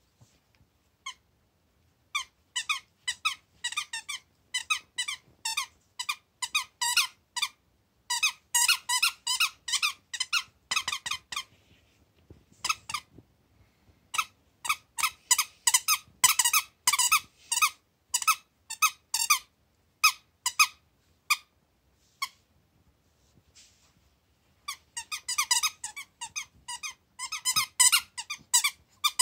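Squeaker in a dog toy being chewed by a Lhasa Apso puppy, squeaking in quick runs of several squeaks a second, broken by pauses of a couple of seconds.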